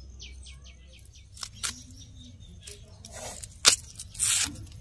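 An onion being peeled and cut with a knife: a few sharp clicks and short crackly scrapes, the loudest a sharp knock about three-quarters of the way through. Birds chirp several times in quick succession at the start.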